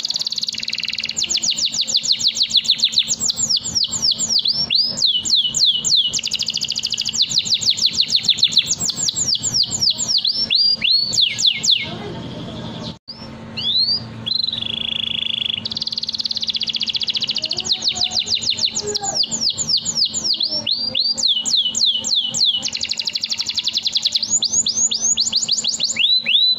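Domestic canary singing a long song: rapid trills of repeated, falling high notes, switching from one trill to the next every second or so, with a brief break about halfway through.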